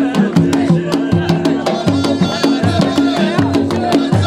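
Drum-led festive music with a quick, steady beat of about three to four strokes a second over held tones.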